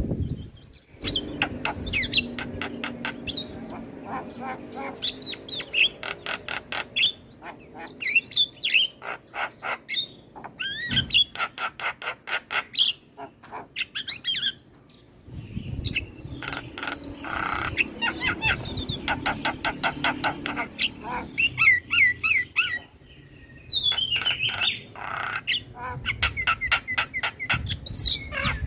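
Javan myna (jalak kebo) singing a long, varied song of rapid clicking rattles mixed with short whistles and harsh squawks, broken by brief pauses.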